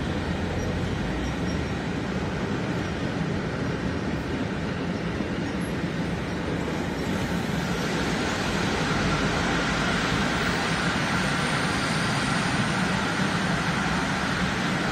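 Freight train of covered sliding-wall wagons rolling past, a steady noise of wheels on rail that grows a little louder about halfway through.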